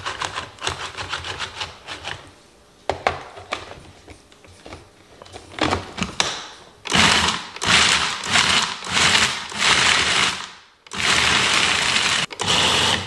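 Food processor pureeing frozen peppers: it starts about seven seconds in, runs in several short pulses, stops briefly, then runs steadily near the end. Before it starts there are light knocks, rubbing and clicks as the bowl's contents are handled and the lid is fitted.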